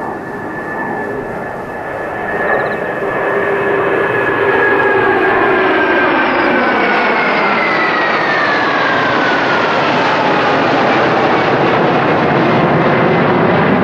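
Formation of eight F-2 and F-15 jet fighters flying over: a loud jet roar that builds over the first few seconds and then holds. Engine whine falls in pitch about halfway through as the formation passes overhead.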